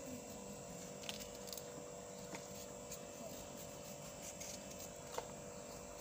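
Quiet kitchen room tone: a steady low hum with a few faint clicks as a cucumber and a paring knife are handled over the sink, the sharpest click about five seconds in.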